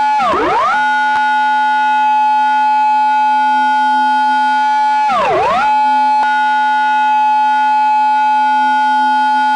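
Recreated Japanese police car siren in its intersection-entry pattern: a held, high siren tone that twice swoops sharply down in pitch and straight back up, near the start and again about five seconds in.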